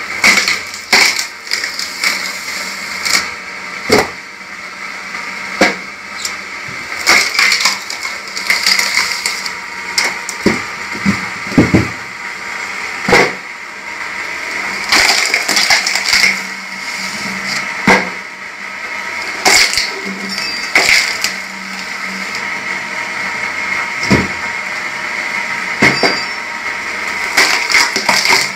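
Motor-driven screw cone log splitter running steadily while its spinning threaded cone bores into logs. The wood cracks and splinters again and again at irregular intervals as the logs split.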